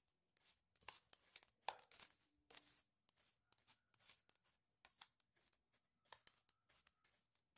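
Spoon stirring a dry mix of powdered milk, powdered sugar and baking soda in a bowl: faint, irregular scratchy strokes as the spoon scrapes through the powder.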